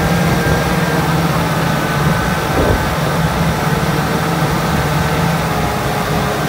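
Kubota tractor's diesel engine running steadily as it drives through a flooded rice paddy, an even drone that does not rise or fall.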